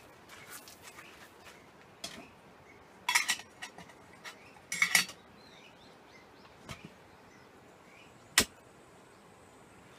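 Short clinks and clatters of camping gear being handled while camp is packed up: clusters about three and five seconds in, and a single sharp click near the end.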